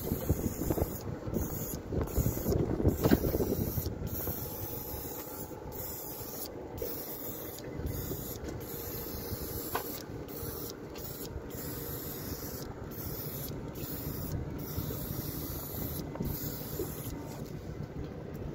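Viper Pro X battery-powered airbrush spraying primer: a steady hiss of air and paint, broken by many brief gaps. A low rumble runs under it in the first few seconds.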